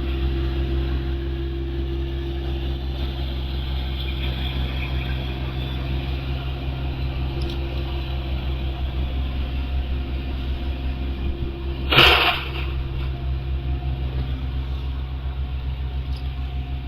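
Car engine idling steadily, with a short, loud burst of noise about twelve seconds in.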